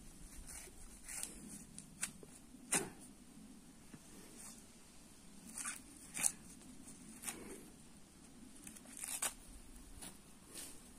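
Husks being torn off an ear of fresh corn by hand: a series of short, irregular tearing rips, the sharpest about three seconds and six seconds in.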